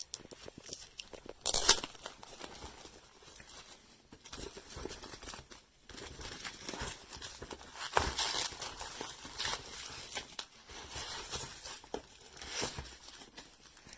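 Product packaging being handled: irregular rustling and crinkling with small taps and knocks, a louder rustle about a second and a half in and a sharper knock about 8 seconds in.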